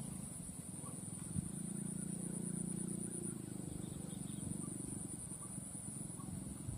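Rural field ambience: a steady high-pitched insect drone over a low hum, with a single soft knock about a second and a half in.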